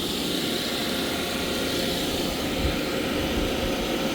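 Refrigeration machinery running: a steady, even drone with a faint constant tone over it.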